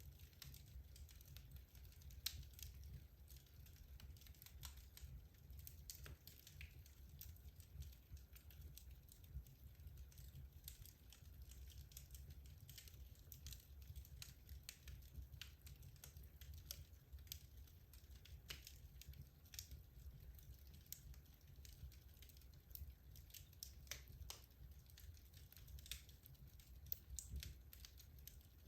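Wood logs burning in a fireplace: quiet, irregular crackling and popping, many small snaps at random intervals over a faint low rumble.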